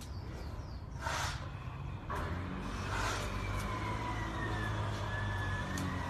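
A motor vehicle running somewhere near: a low engine rumble that grows louder about two seconds in, with a thin whine that slowly falls in pitch. A few short swishes come through over it.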